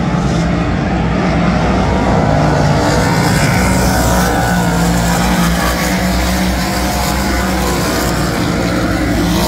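Race car engines running at speed during a heat race, a steady loud drone with several engines overlapping.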